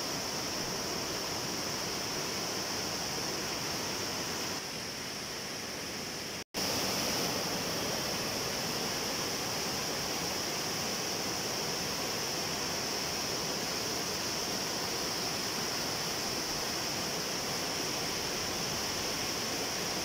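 Flash-flood water rushing over the rocky rapids of a waterfall stream: steady white-water noise that cuts out for a split second about six and a half seconds in and comes back slightly louder.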